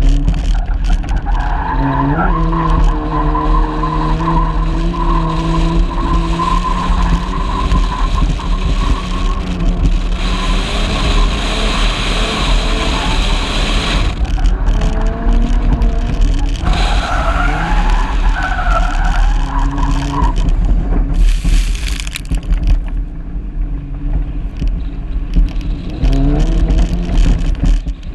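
A car's engine driven hard on a dirt track, heard from inside the car. It revs up in rising sweeps about two seconds in and again near the end, holding steady revs in between. Gravel and dirt hiss under the tyres as it slides through the corners, over a constant low rumble of wind on the microphone.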